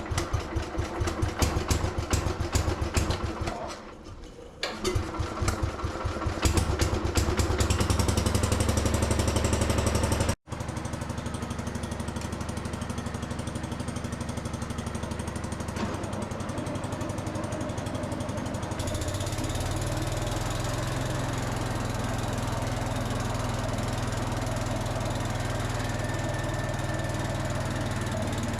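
Gravely Commercial 10 walk-behind tractor's Kohler single-cylinder engine started on choke. It fires, falters briefly about four seconds in, catches again and revs up, then runs steadily. About nineteen seconds in, the engine note deepens and grows heavier.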